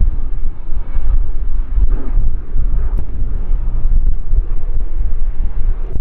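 Low, unsteady rumble of a C-130H Hercules's four turboprop engines as it flies past, mixed with wind buffeting the microphone.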